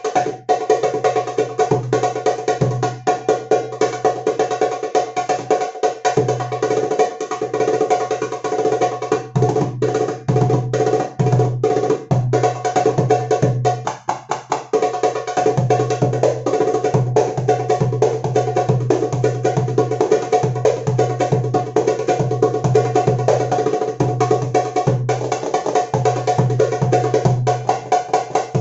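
Egyptian tabla (goblet drum, darbuka) played in dense, rapid strokes and rolls, over sustained accompanying notes.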